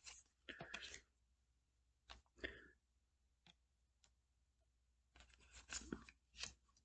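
Near silence: room tone broken by a few faint, brief clicks and rustles.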